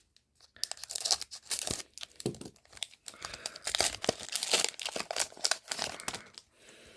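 Foil booster pack of Pokémon trading cards being torn open and crinkled, an irregular run of crackling, tearing noise.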